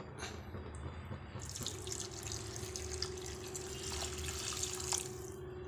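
Hot water being poured into a pan of chicken curry masala, a steady pouring splash that starts about one and a half seconds in.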